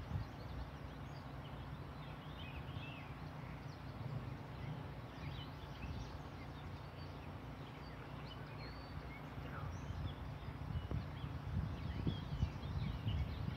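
Outdoor ambience: scattered small bird chirps over a steady low rumble.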